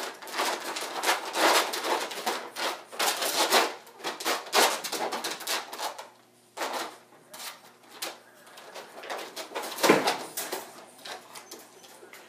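A dog moving about inside a wire crate, with scraping and rattling noises in quick bursts for about six seconds, fewer after, and a sharp knock about ten seconds in.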